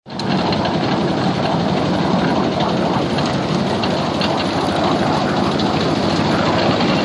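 A 7¼-inch gauge miniature train running along its track, heard from a riding car: a steady rolling noise of wheels on the rails with many small clicks.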